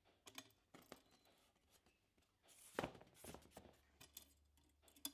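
Faint handling noises: a few light taps and rubs as an EVA foam tile is threaded onto the wire of a homemade hot wire cutter and set against its aluminium arm, the loudest knock about three seconds in. A faint low hum comes in just after it.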